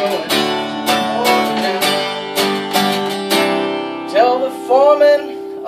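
Acoustic guitar strummed live, a chord struck about every half second, the last one left ringing; a man's singing voice comes in over it about four seconds in.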